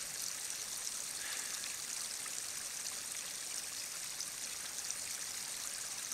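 A small forest creek running steadily, an even rush of water with no distinct splashes.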